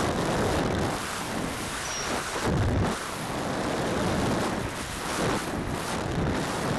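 Wind rushing and buffeting in uneven gusts over a high-power rocket's onboard camera microphone as it falls fast under only its drogue parachute, the main parachute having failed to deploy.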